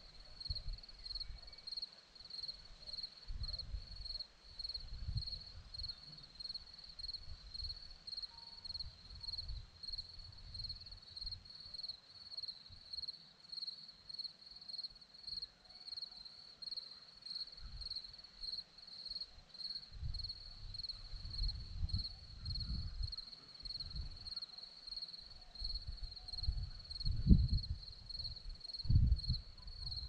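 Crickets chirping in a steady, evenly pulsing high-pitched trill, with irregular low rumbles of wind on the microphone that grow strongest near the end.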